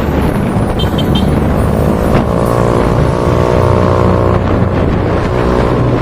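Motor vehicle running, heard from on board, with steady road and wind noise. Three short high beeps come about a second in, and a steady pitched drone rises above the noise for a couple of seconds in the middle.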